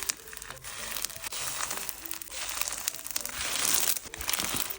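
Snow fizz slime being pressed and squished by hand, giving a dense, crackling, crunchy fizz of many tiny pops, louder after about three seconds.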